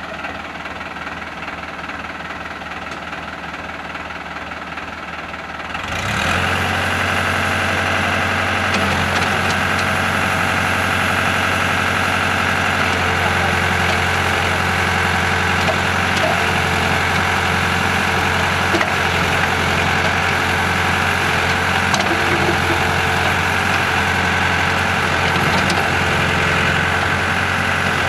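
Escorts Powertrac 4455 tractor's diesel engine running, powering the loader backhoe. About six seconds in, its sound steps up abruptly to a louder, steady level and holds there.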